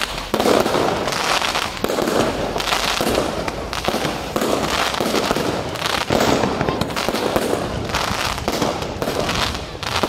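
Firework display: aerial shells bursting in a dense, continuous run of bangs and crackling, loud throughout.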